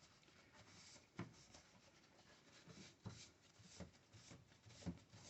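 Faint rubbing and a few light taps from hands handling small computer hardware parts, with clicks about one, three and five seconds in.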